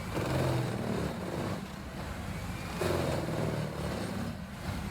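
HG6800TX horizontal grinder running: a steady low drone from its large engine, with a few higher tones that come and go.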